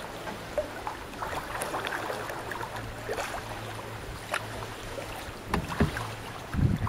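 Water sloshing and splashing around a canoe on the sea, over a steady low hum. A few stronger thumps come in the last two seconds.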